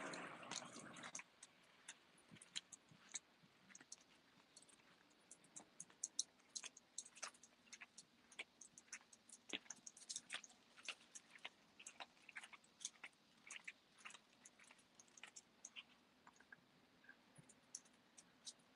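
Small dogs' claws clicking on paving stones as they walk: quiet, irregular light ticks, several a second. A short noisy sound dies away about a second in.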